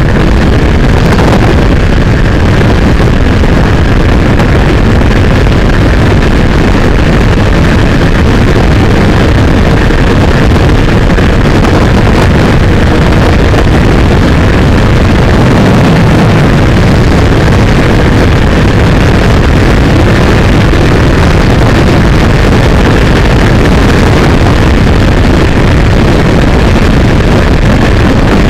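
Motorcycle cruising at highway speed: a steady engine drone under loud, constant wind rush on the microphone.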